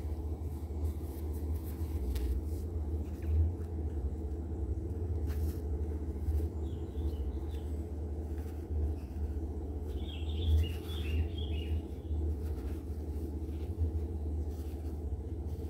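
Steady low background rumble, with faint soft handling noises as fiberfill is pushed into a small crocheted head. A few brief high chirps come about seven and eleven seconds in.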